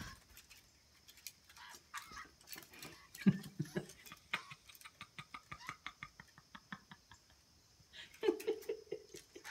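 Light, scattered clicks and taps as juvenile blue jays shift about on a wooden perch, with two short low-pitched sounds, one about three seconds in and a pulsing one near the end.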